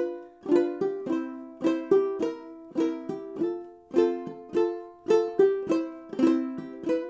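Duke 10 banjo ukulele in reentrant high-G tuning, played clawhammer style over chords with no hammer-ons or pull-offs. A down-pluck and brush across the strings, with the thumb picking the high G string, repeat in a steady pattern about once a second, and the chord changes partway through.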